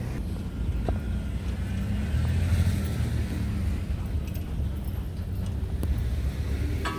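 Car driving past on a snow-covered street, its tyre and engine noise swelling about two to three seconds in over a steady low rumble.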